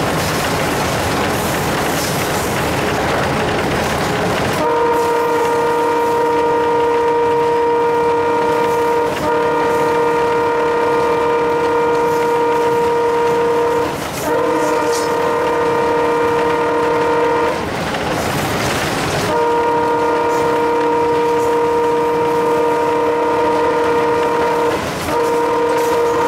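Alco WDM3A diesel locomotive's horn, heard from inside the cab, sounding a loud chord of several notes in long held blasts. It starts about four seconds in over the locomotive's running noise, breaks briefly a few times and pauses for about two seconds past the middle.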